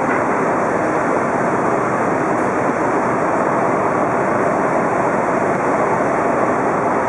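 Steady, loud rushing noise aboard a car ferry as it berths, an even roar of ship machinery and moving air without any distinct engine tone or beat.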